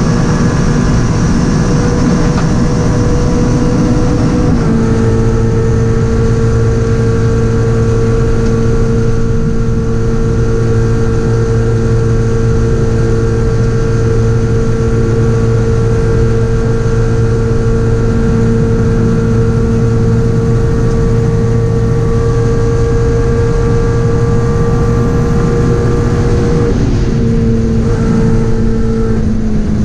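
Toyota GT86 CS Cup race car's flat-four engine heard from inside the cabin, running flat out at nearly constant high revs on a straight, over road and wind noise. The engine note drops slightly about four seconds in and shifts again briefly near the end.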